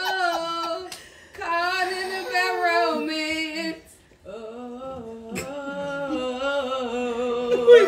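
A woman singing long, wavering held notes in three phrases, with short breaks about a second in and about four seconds in.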